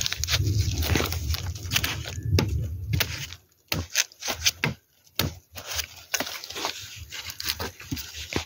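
Dry leaves and soil crackling and scraping as a gloved hand and a machete dig at the base of a bamboo shoot, with irregular sharp knocks and clicks. A low rumble runs under the first three seconds or so, then the knocks come scattered with short quiet gaps.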